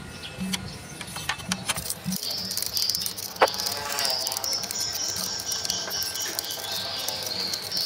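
Toothbrush scrubbing the cassette deck heads and pinch rollers of a JVC Victor RC-X750 boombox: quick rattling clicks and scratches of bristles on plastic and metal, with one sharp squeak about three and a half seconds in.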